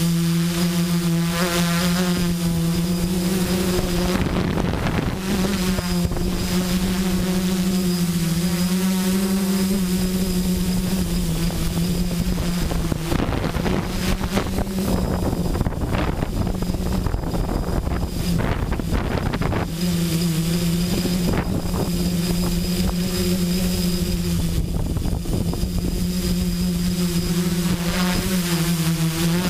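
Multicopter electric motors and propellers buzzing steadily in flight, heard from the camera mounted on the copter, with wind rushing over the microphone. The buzz steps slightly up and down in pitch, and for several seconds midway it is partly drowned by the rushing wind.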